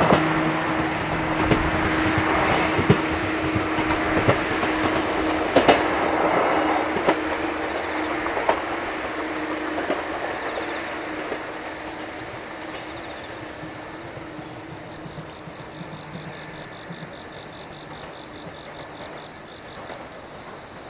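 JR 103-series electric train going past and moving away. Sharp wheel clicks over the rail joints sound through the first several seconds, then the running noise fades steadily.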